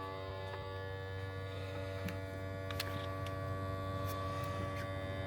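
A steady hum made of several fixed pitches, with a few faint clicks.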